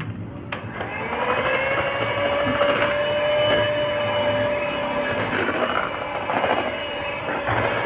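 Electric hand mixer running, its beaters whirring through a crumbly flour-and-egg waffle batter in a plastic bowl. The motor's whine rises in pitch about a second in, then holds steady.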